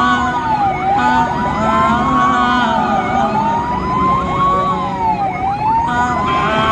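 Ambulance siren wailing, its pitch rising and falling slowly, one cycle every two seconds or so. A second siren sweeps faster over it, above a haze of road noise.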